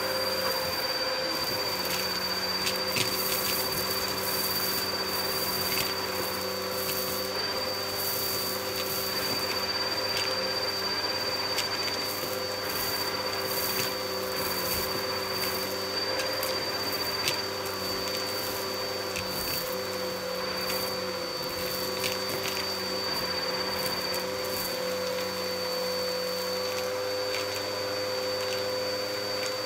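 Bagless upright vacuum cleaner running steadily with a high motor whine, its crevice tool sucking up crushed debris from carpet. The bits rattle and click sharply as they shoot up the hose, most often in the first half.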